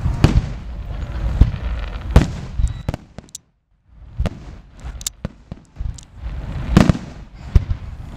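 Aerial firework shells bursting in quick succession: deep booms mixed with sharper cracks and crackling, with the audio dropping out to silence for about half a second near the middle.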